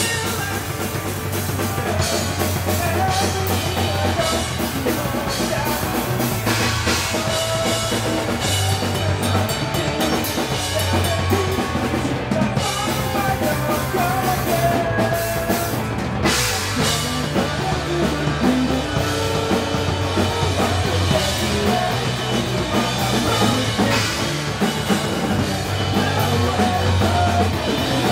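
Live rock band playing: drum kit, electric guitar and bass guitar together at a steady loudness.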